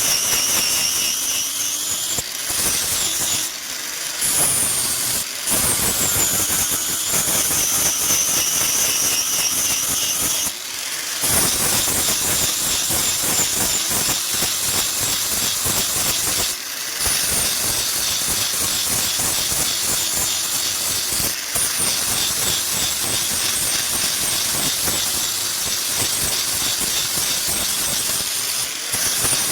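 A high-speed power tool working metal under load: a loud, continuous hissing whine whose pitch sags and recovers as it bites, with a few brief breaks.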